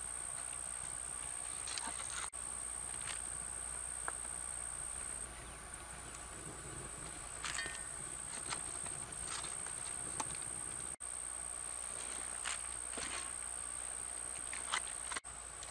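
A steady high-pitched insect drone from the surrounding brush, with scattered soft rustles and light clicks as yucca petals are pulled from the blossoms and dropped into a cast iron skillet.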